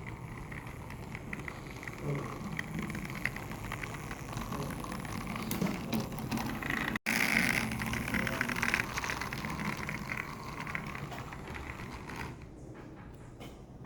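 A toy train running on its track, a steady mechanical whirring and rattling that cuts out for an instant about seven seconds in.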